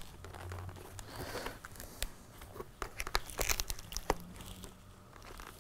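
Fabric-covered foam cheek pads and inner liner of a motorcycle helmet rustling and scraping against the shell as they are worked loose by hand, with scattered small clicks and knocks, a cluster of them about three and a half seconds in.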